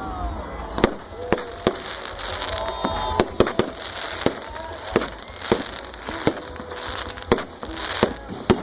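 Fireworks display: a string of irregular sharp bangs, well over a dozen, with crackling in between and people's voices underneath.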